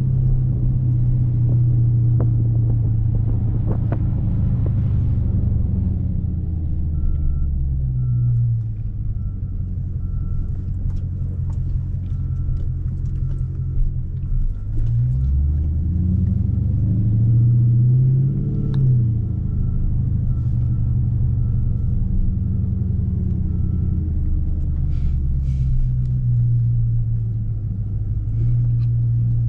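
2019 Dodge Charger Scat Pack's 6.4-litre HEMI V8 with a loud exhaust, heard while driving. It runs steadily, the revs fall about eight seconds in, then climb in an acceleration and drop sharply at a gear change before settling again.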